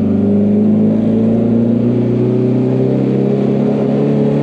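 Honda S2000's turbocharged four-cylinder engine and exhaust under way, heard from inside the car: a steady engine note that rises slightly in pitch in the first second, then holds. The exhaust is rubbing hard against the car, which the occupants say they can hear.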